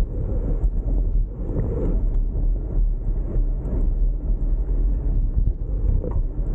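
Wind buffeting a camera microphone on a moving bicycle: an uneven low rumble that rises and falls throughout.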